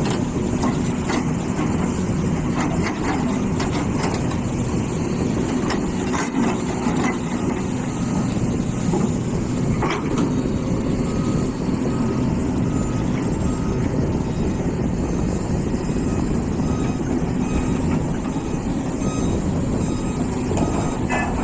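Hitachi EX450 excavator's diesel engine running steadily under working load, with a few metallic knocks in the first half. In the second half an alarm beeps over and over at a steady pace.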